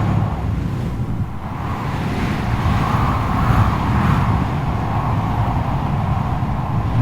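Strong wind blowing in gusts: a steady low rumble with a whistling band that swells and fades, easing slightly about a second in and picking up again a couple of seconds later.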